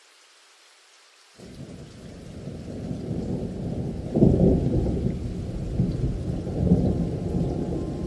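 Rain with rolling thunder from a thunderstorm recording. Faint rain hiss, then about a second and a half in a low rumble of thunder sets in and builds, loudest about four and again nearly seven seconds in.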